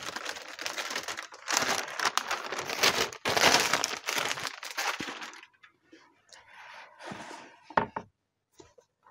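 Baking parchment rustling and crinkling as it is peeled off a freshly baked honey-cake layer. The crinkling stops about five and a half seconds in, leaving a few faint handling sounds and a short knock.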